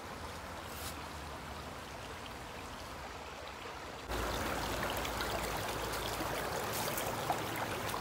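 Water of a small waterfall stream rushing steadily, suddenly louder and fuller about four seconds in.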